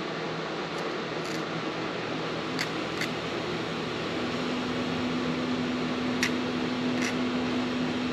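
A needle file scraping the edges of a piston ring in a few short, faint strokes, roughly in pairs, deburring the ring after its gap has been filed. Under it runs a steady background whoosh, joined by a low steady hum about halfway through.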